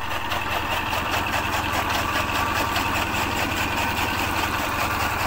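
A steady engine hum, like an idling motor, is the loudest sound, with water from a hose splashing into a plastic drum around a dog being bathed.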